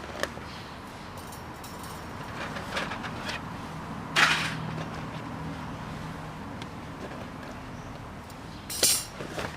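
A few short handling noises, scrapes or rustles, the loudest about four seconds in and another near the end, over a steady background of road traffic.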